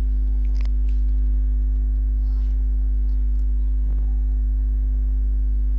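Steady low electrical hum with a fainter steady tone above it, and a few faint clicks.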